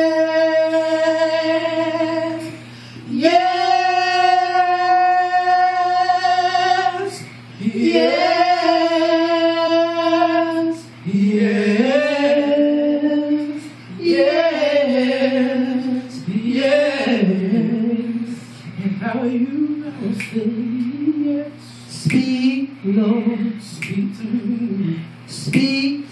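Two women singing a gospel song a cappella into microphones. They hold three long notes in the first half, then move into a quicker, moving melody over a steady low hum.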